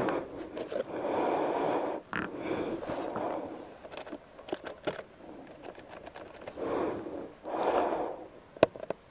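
Hands pulling at a motorcycle's side cover panel while looking for the battery: scraping and a few sharp clicks as the panel is worked loose. Between them come three stretches of soft rushing noise, the loudest sound here.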